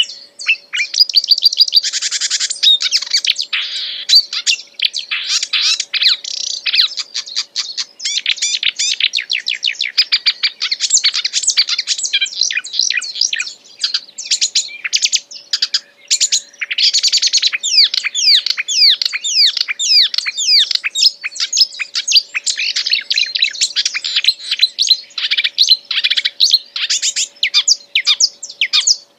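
A songbird singing non-stop: a long, fast run of chirps, whistles and trills with a few short breaks.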